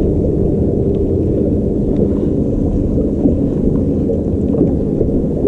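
Wind rumbling on the microphone aboard a bass boat on open water, with a steady low hum underneath.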